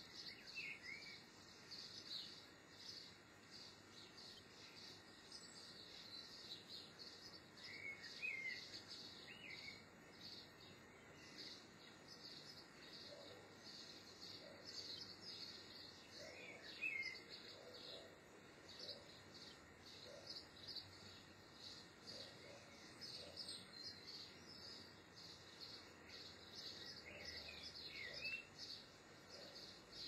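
Faint twittering of small songbirds, a continuous high chatter with a few clearer short chirps standing out now and then.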